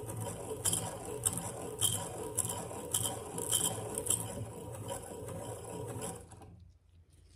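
Hand-crank piston ring filer grinding the end of a piston ring to set its end gap: a rasping scrape repeating stroke by stroke, a little under twice a second, that fades out about six seconds in.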